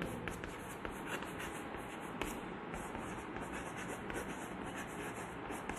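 Chalk writing on a blackboard: a run of short, faint strokes over a steady room hiss.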